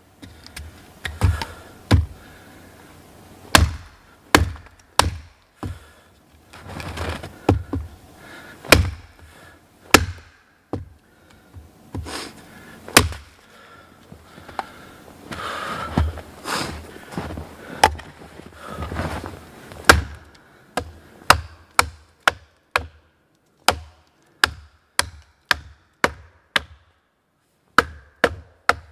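Small hatchet (Hultafors Hultan) chopping wood with sharp, hard strikes. They come irregularly at first, with a few longer rough sounds between them. After about twenty seconds they become a quick, steady run of roughly two chops a second as a branch is cut across a log.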